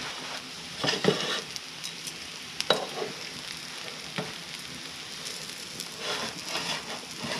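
Burger buns, patties and fried eggs sizzling in a frying pan on a wood stove, a steady hiss broken by a few short clicks and scrapes as a spatula moves the food about.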